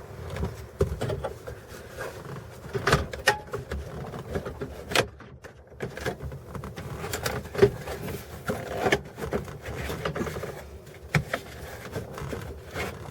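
Irregular clicks, taps and knocks of hands working on plastic dash trim and wiring inside a truck cab, with a few sharper knocks spread through.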